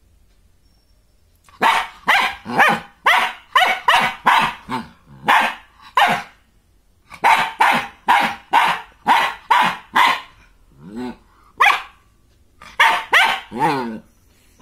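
German Shepherd puppy barking: about two dozen short, sharp barks in quick runs after a quiet first second and a half, with brief pauses between runs and a softer, lower call about eleven seconds in.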